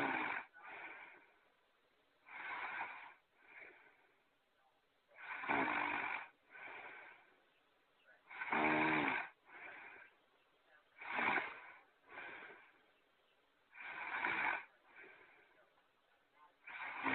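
Cartoon character's snoring sound effect repeating: a loud snore followed by a shorter, softer one, the pair coming round about every three seconds.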